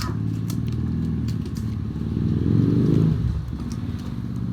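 An engine running steadily, rising in pitch and loudness for about a second near the middle, then settling back to idle.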